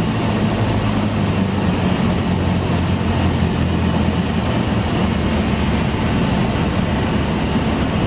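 Cessna 172's piston engine and propeller droning steadily in cruise flight, heard from inside the cockpit.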